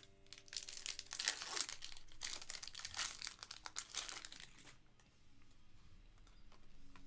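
A foil Panini Prizm basketball card pack wrapper crinkling and tearing as it is ripped open by hand, for about four seconds, then dying down to faint handling of the cards.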